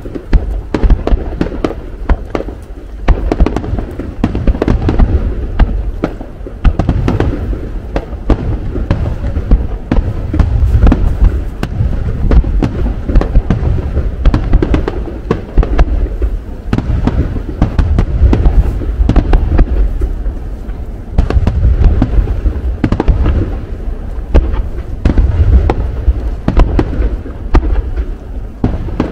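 Aerial fireworks shells bursting in a dense barrage: rapid booms one after another over a continuous low rumble, with louder clusters of bursts several times.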